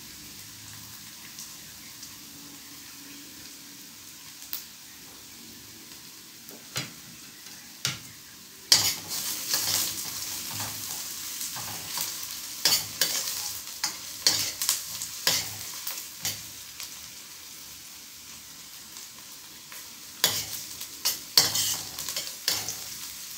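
Small onions and green chilies frying in hot oil with a steady sizzle, being sautéed until golden brown. A spatula stirs and scrapes the pan in two spells of quick clicks, one through the middle and another near the end, with only a few single clicks before.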